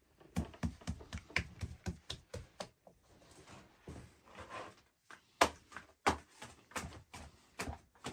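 Irregular run of light taps and knocks, several a second, with a few louder knocks about five and six seconds in.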